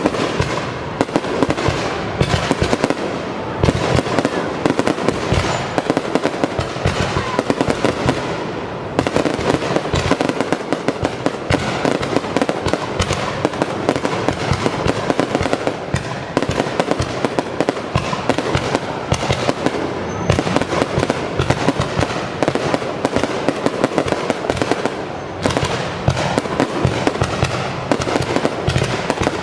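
Aerial fireworks display: a dense, continuous barrage of bangs and crackling, several reports a second, with a brief lull about eight seconds in.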